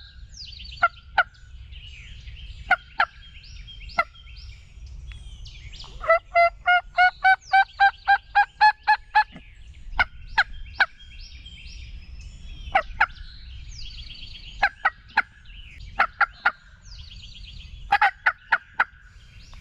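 Turkey yelps and clucks: scattered sharp single clucks, then about six seconds in a run of about a dozen yelps, about four a second, rising slightly in pitch. Songbirds sing faintly in the background.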